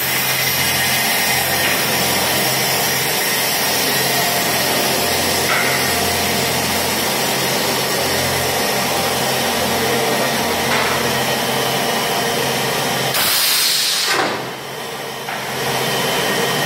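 Stainless steel pipe making machine running: a steady mechanical hum with a hiss over it. About three quarters of the way through, a short loud rush of noise, then the level drops for a second or so before the steady running resumes.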